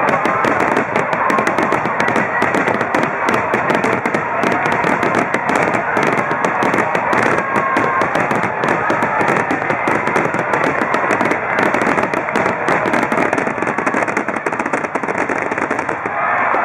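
Wide starmine fireworks finale: a rapid, unbroken barrage of shells launching and bursting, dense overlapping bangs and crackle with no pause.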